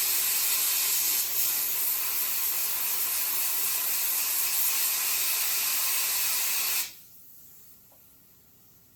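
Steady hiss of compressed air blown onto the hood's fresh weld to cool it between tack drops, cutting off sharply about seven seconds in.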